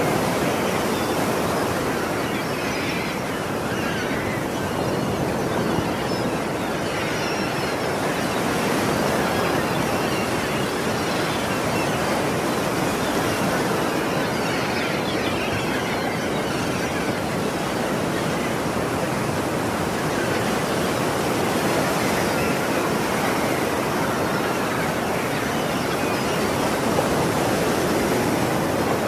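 Ocean surf: waves breaking and washing in a steady, continuous rush, with faint seagull calls now and then.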